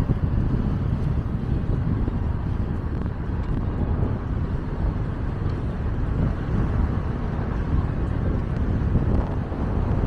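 Wind buffeting the microphone: a steady, flickering low rumble with no distinct events.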